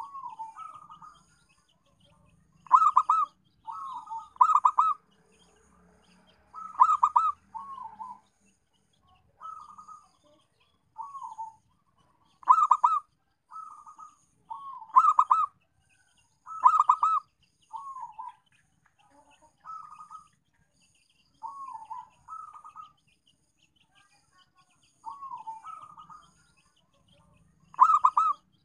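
Zebra dove (perkutut) cooing: short, rolling, warbled coos repeated every second or two, some phrases much louder with a fast trill. This is the perkutut's call as used for luring other zebra doves.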